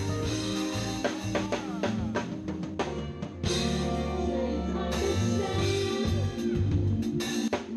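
Live band playing: a drum kit keeping a steady beat under electric bass and keyboard chords, with singing.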